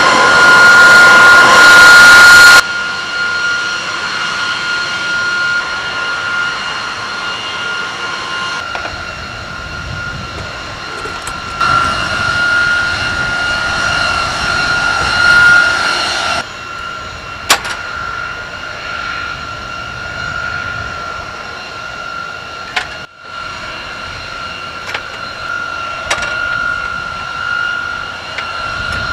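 Steady high-pitched whine of jet turbines, very loud for the first two or three seconds, then quieter and stepping up and down in loudness several times, with a few sharp clicks.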